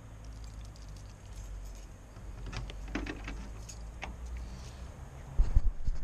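Keys jingling and small clicks of handling over a low steady rumble, then a few heavy thumps near the end.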